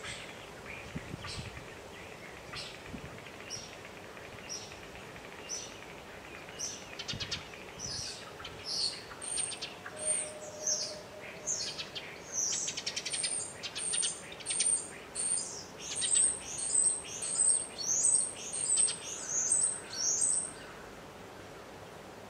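Songbird chirping: scattered high notes at first, then a run of rapid, high, downward-sliding notes that grows louder and quicker, about one and a half a second at its peak, before stopping suddenly near the end.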